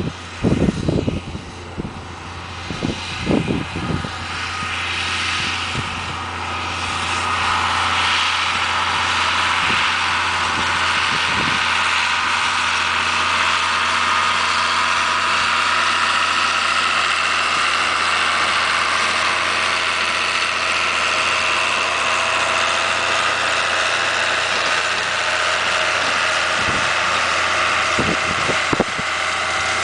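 International Harvester 686 tractor's D310 six-cylinder diesel engine running steadily under load as it pulls a seed drill, growing louder over the first several seconds as it comes closer, then holding steady. Low gusts of wind on the microphone in the first few seconds.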